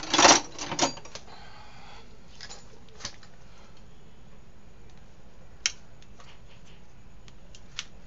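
Metal clinks and knocks from a Honda Vario scooter's cylinder head being handled on the floor: a quick burst of knocks in the first second, then a few single sharp clicks spaced out over the rest.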